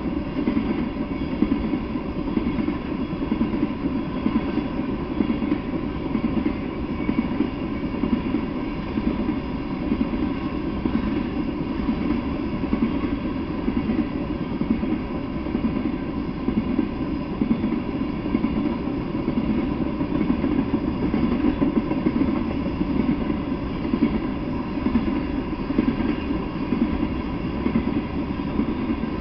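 Freight train of tank cars rolling past at speed: a steady, unbroken rumble of steel wheels on the rails.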